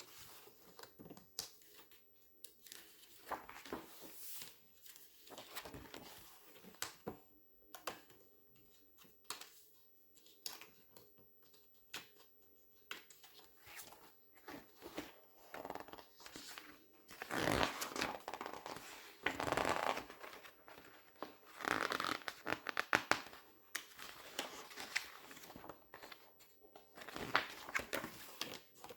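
Glossy magazine pages being turned, crinkled and squeezed close to the microphone: a string of sharp paper crackles and rustles, with longer, louder rustling stretches a little past the middle.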